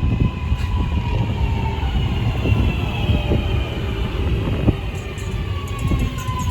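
Class 323 electric multiple unit arriving: its traction motors whine in several tones that fall slowly in pitch as it slows, over a steady rumble of wheels on rail, with a few clicks.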